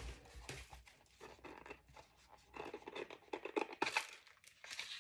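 Plastic packaging crinkling and rustling as a piece of costume jewelry is handled and worked out of its wrapping, in light, irregular crackles.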